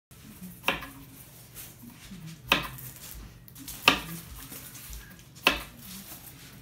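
Kitchen knife slicing through a cucumber and knocking down onto a wooden cutting board, four sharp chops about a second and a half apart.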